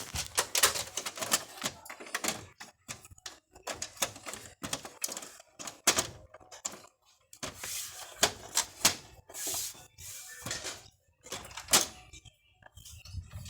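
Rapid, irregular clicks and clatters of hard parts being handled, typical of working on or reassembling a laser printer.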